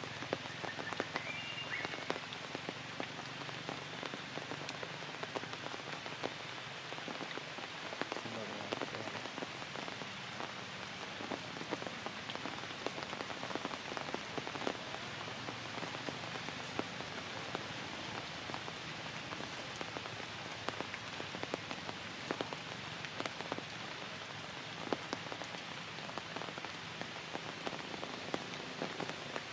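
Steady rain falling on forest leaves and branches, with many small drip ticks throughout.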